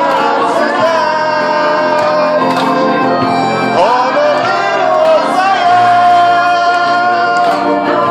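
Singing with instrumental backing, loud and continuous, the voice holding long wavering notes, one of them held for a couple of seconds near the end.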